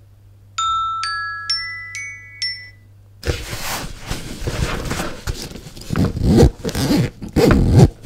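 iPhone SE (2020) ringtone from the phone's speaker at about 30% volume: five quick marimba-like notes. From about three seconds in, a fabric bag is handled and unzipped, a scratchy rasping that is the loudest sound.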